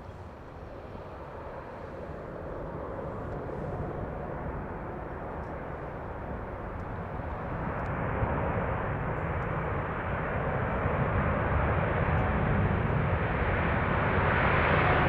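Jet airliner's engines growing steadily louder as the aircraft approaches: a broad, even rumble with no distinct tones that builds throughout.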